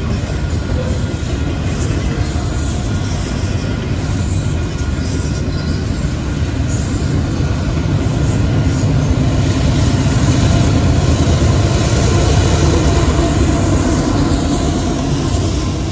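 Union Pacific double-stack container freight train rolling past, with a steady rumble and clatter of wheels on rail. In the second half, the drone of mid-train diesel locomotives swells as they draw level and is loudest about two-thirds of the way through.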